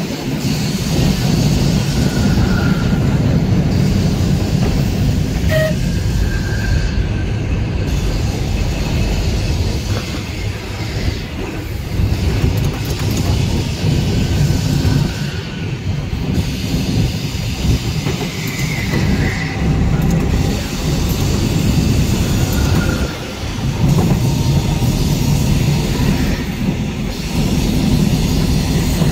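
A tram running along its track, heard from inside the car: a steady, loud low rumble of motors and wheels on rail, easing off briefly a couple of times. A few short, faint high squeaks come and go.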